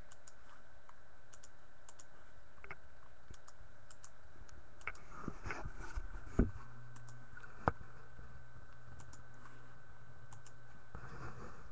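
Scattered clicks and key taps at a computer keyboard and mouse, with two sharper clicks a little past the middle, over a steady low electrical hum.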